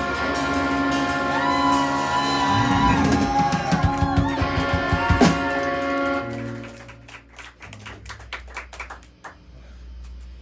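Live instrumental band with electric guitar ending a song: sustained ringing chords under lead notes that bend and glide in pitch. The music stops about six seconds in, and scattered audience clapping follows.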